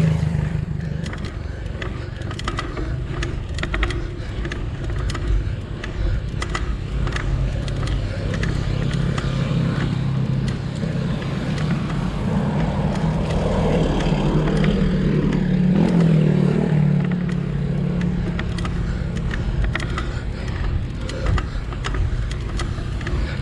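A vehicle engine running steadily under load, its pitch rising for a couple of seconds about two-thirds of the way through, with frequent light rattles and clicks over it.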